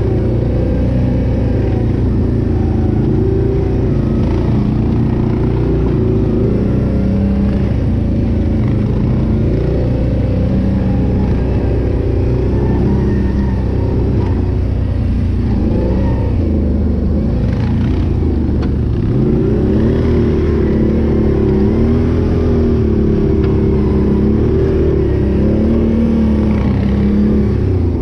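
Can-Am Renegade 800 ATV's V-twin engine running under constantly changing throttle, its note rising and falling over and over, with a brief easing off a little past the middle.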